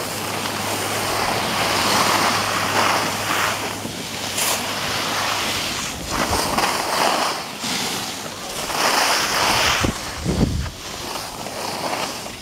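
Wind rushing over the microphone with the hiss and scrape of edges sliding over packed snow while riding downhill, swelling and fading in surges. A couple of low knocks come near the end.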